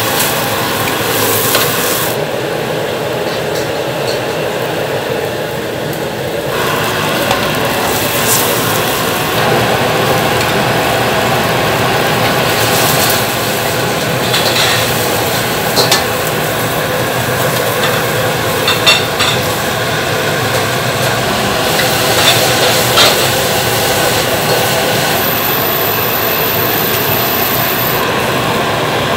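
Restaurant high-flame gas wok burner running steadily under a wok while vegetables and seafood are stir-fried in it, sizzling. Several sharp clanks of the metal spatula against the wok come mostly in the second half.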